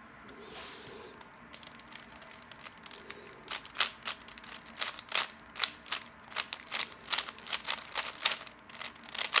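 A 3x3 Rubik's cube being turned by hand, its layers clacking in a run of sharp clicks, about two or three a second, starting about three and a half seconds in.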